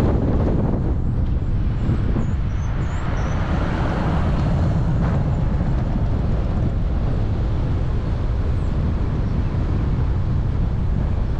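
Steady low rumble of a car driving: road and wind noise. A few faint high chirps come a couple of seconds in.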